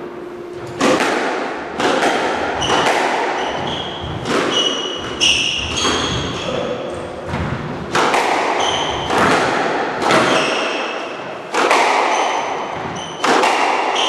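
Squash rally: the ball struck by rackets and hitting the court walls about once a second, each hit echoing in the court, with short high squeaks of players' shoes on the wooden floor.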